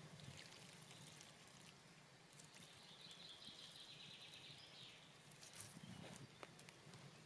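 Near silence: faint woodland ambience, with a faint high trill held for about two seconds partway through and a few light ticks near the end.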